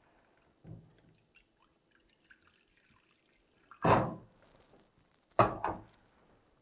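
A soft knock, then about four seconds in a short splash of water poured from an electric kettle into a bowl, and about a second and a half later a sharp clunk as the kettle is set back down on its base.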